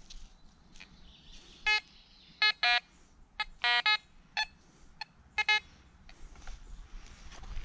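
Fisher F22 metal detector giving a series of short, irregularly spaced electronic beeps, its target tones signalling metal under the search coil.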